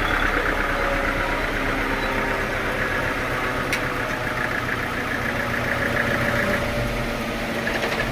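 Sawmill machinery running steadily with an engine-like hum, with one sharp click a little under four seconds in.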